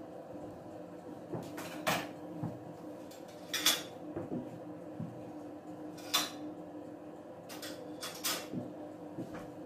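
Several short, sharp knocks and clicks of kitchen handling, the loudest about two seconds and three and a half seconds in, over a steady low hum.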